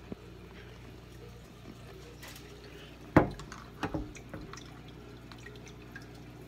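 Aquarium water trickling and dripping over a steady low hum, with one sharp knock about three seconds in followed by a couple of lighter knocks.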